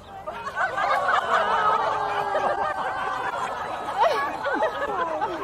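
Several people laughing at once, breaking out just after the start and going on in overlapping bursts.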